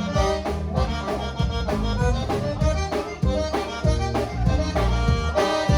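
Conjunto music: an accordion plays an instrumental passage over a steady bass and drum beat, with no singing.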